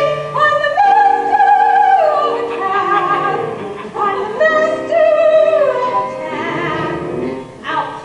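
Music: a high operatic singing voice holds long notes with vibrato and glides between them, with no words heard.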